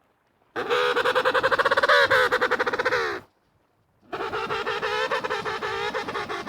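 Two long, harsh penguin calls, each about three seconds, with a fast buzzing pulse. The first starts about half a second in, and the second follows after a second's pause.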